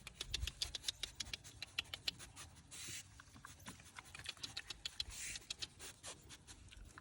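Coatis feeding close by: quick, irregular clicking and pattering, with two short breathy hisses about three and five seconds in.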